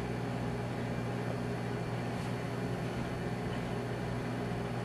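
Microwave oven running with a steady low hum from its fan and transformer.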